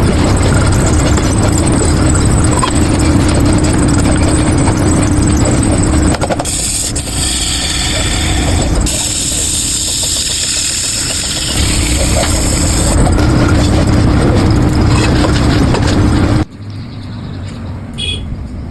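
Metalworking machinery running loudly and steadily, with a shrill high squeal from about six to thirteen seconds in; the noise cuts off abruptly about two seconds before the end.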